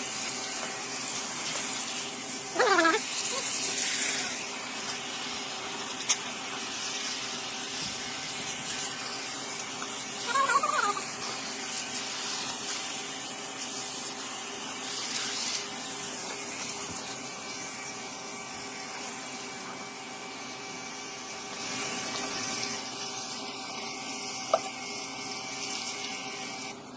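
Water spraying with a steady hiss, as when an air conditioner's unit is washed out during a service.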